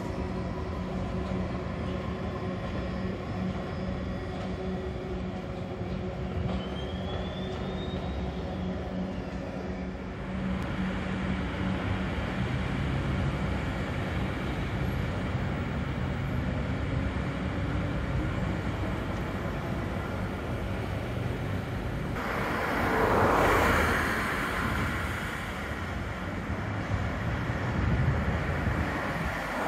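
Electric S-Bahn train running along the elevated track, a steady mechanical hum with a brief high whine that rises and falls about seven seconds in. About two-thirds through, a loud rush swells and fades as something passes close by.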